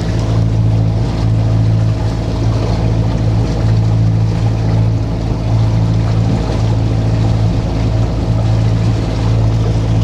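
A sailing yacht's inboard diesel engine running steadily under way, a constant low drone.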